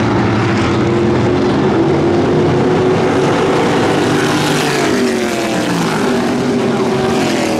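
Race car engines running around the oval track, several engine notes overlapping, with pitches that fall about five seconds in.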